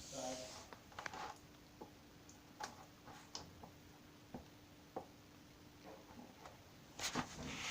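Faint scattered clicks and taps from small objects being handled, over a steady low hum. A louder rustling noise starts near the end.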